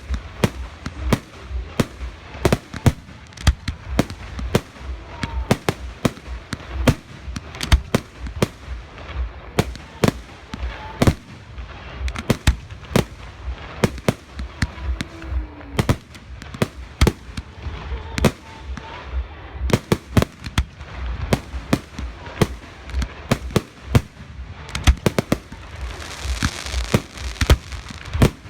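Fireworks display: a rapid, unbroken string of shell bursts and bangs, several a second, with a hissing crackle coming in near the end.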